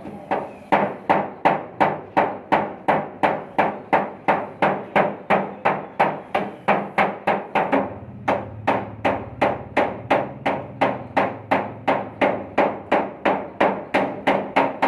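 Hammer beating out a dented sheet-metal car body panel: a long, even run of sharp metallic blows, about three a second, each with a short ring.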